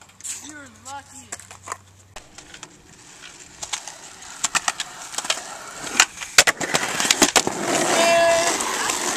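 Skateboard wheels rolling on concrete, growing louder, with several sharp wooden clacks of the board popping and landing. A voice is heard near the start and again near the end.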